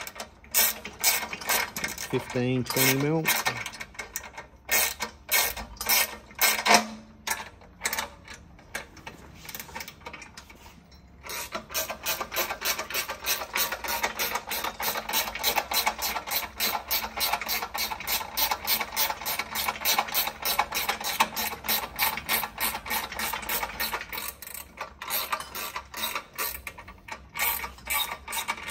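Ratcheting ring spanner clicking in quick, even strokes as a nylock nut is wound onto a bolt, with a short pause about ten seconds in and then a long steady run of clicks.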